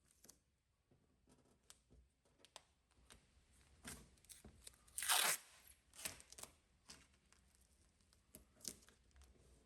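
Masking tape pulled off the roll and torn in short rips, with light crinkling; the loudest, longest rip comes about five seconds in.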